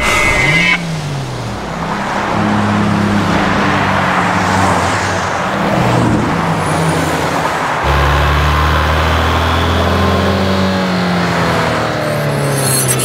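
Advertisement sound design: a rushing whoosh over sustained low droning tones that shift in pitch, with a deeper, louder tone coming in about eight seconds in and gliding tones near the end.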